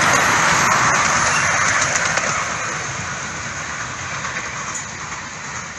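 Miniature railway passenger carriages rolling past on the rails, the wheel noise fading steadily as they move away, with a few clicks over the rail joints.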